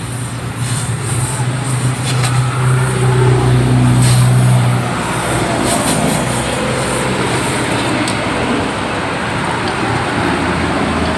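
Road traffic noise with a steady engine hum that stops about five seconds in.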